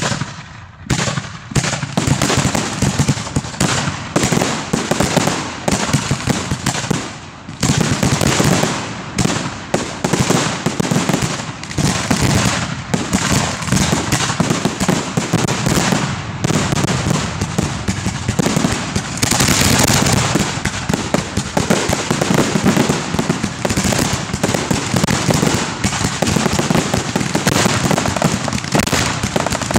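Dense barrage of aerial fireworks going off in rapid succession: shells launching and bursting, their bangs overlapping almost without pause. A stretch of bright hissing crackle rises over the booms about twenty seconds in.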